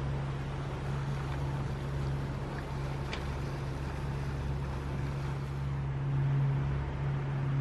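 A Lagoon 42 catamaran's diesel engines running steadily under way, a continuous low hum over a wash of wind and water noise.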